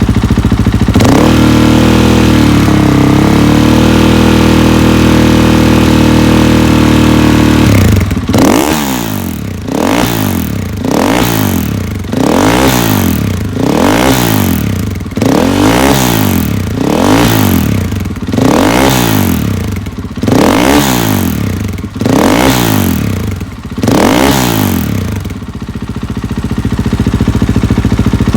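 KTM 500 XCF-W single-cylinder four-stroke dirt bike engine, breathing through a Graves titanium muffler. It runs at a steady, slightly raised speed for the first several seconds. It is then blipped through about ten quick revs, roughly one every 1.7 seconds, before settling back near the end.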